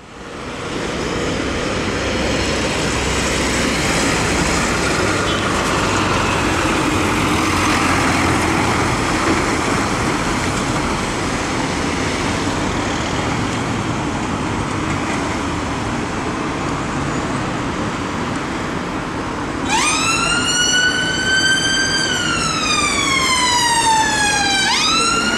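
Traffic engines and tyres running steadily. About twenty seconds in, an ambulance siren starts up in a slow wail: it rises, falls over a few seconds, and rises again near the end.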